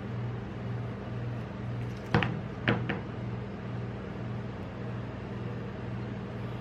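Metal spatulas knocking on the steel cold plate of a rolled-ice-cream machine: three sharp knocks about two seconds in, the first two the loudest. Under them, the machine's steady low hum.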